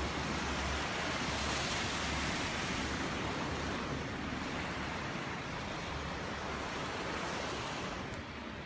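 Steady rushing wind noise on a phone's microphone, held out over the bar of an open chairlift seat. It eases slightly near the end.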